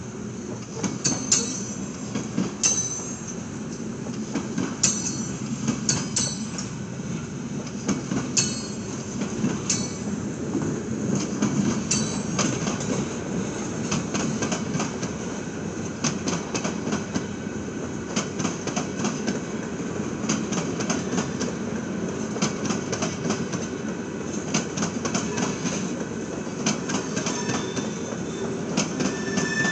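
Freight cars of an Arkansas & Missouri train rolling past: a steady rumble with rapid clacking of wheels over the rail joints. Short, high wheel squeals come repeatedly during the first dozen seconds.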